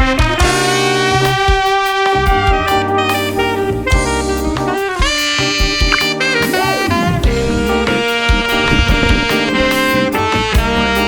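Background music: an instrumental passage with a saxophone-led horn melody over a drum kit beat.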